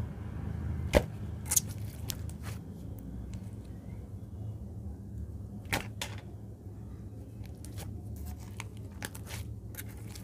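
Clay slime being stretched, folded and pressed by hand: scattered sharp pops and clicks as it pulls and squashes, the loudest about a second in and another near six seconds. A steady low hum runs underneath.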